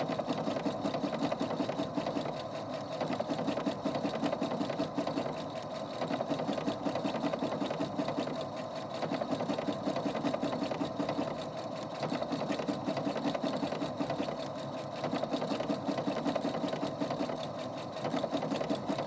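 Husqvarna Opal 650 electronic sewing machine sewing a decorative star stitch at moderate speed. The needle runs in a fast, even patter, swelling and easing every two to three seconds as the feed carries the fabric forward and back to form the pattern.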